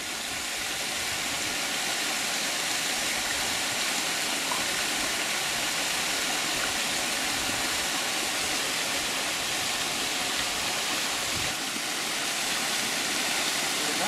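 Waterfall pouring into a rock pool: a steady, even rush of falling water.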